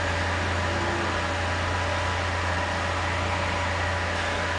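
Steady low hum with a constant hiss and a few faint high tones, unchanging throughout, with no distinct event.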